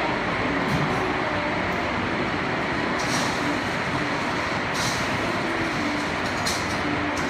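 Heavy rain falling in a steady downpour, with a few brief, sharper splashes now and then.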